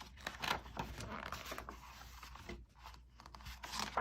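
Paper rustling and rubbing in irregular strokes as a picture book's pages are handled and turned.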